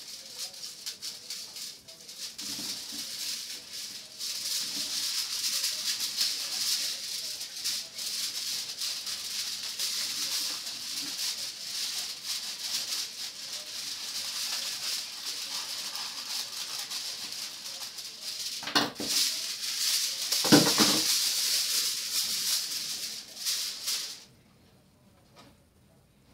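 Aluminium foil crinkling and rustling as it is handled and pulled from the roll over a flat panel. There are two louder crumples about two-thirds of the way in, and the sound stops suddenly near the end.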